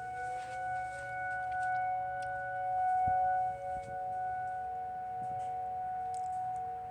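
Outdoor warning sirens being tested, several sounding together at once as steady tones of different pitches. One of them winds up in pitch and levels off about a second in, and another lower tone comes in about three seconds in.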